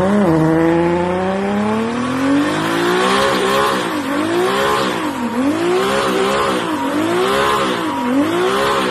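Mercedes-Benz OM606 diesel straight-six revving hard during a burnout. The revs climb steadily for the first few seconds, then bounce up and down about once a second, with the tyres squealing.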